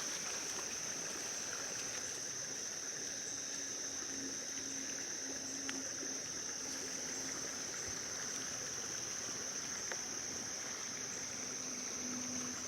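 Steady, high-pitched chirring of insects such as crickets, over an even hiss, with a faint low hum coming and going from a few seconds in.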